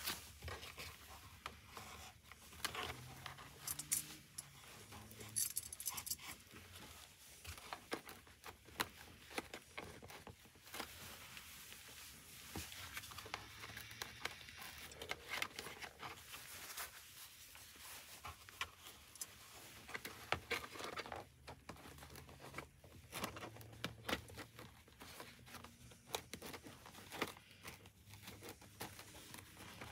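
Shoei Neotec 3 helmet's cheek pad being worked back into the shell: fabric and foam rustling with many small plastic clicks, scattered irregularly.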